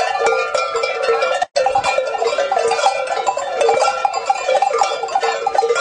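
Several large metal bells worn on a costume clanging continuously as the wearer moves, with a brief cut-out about a second and a half in.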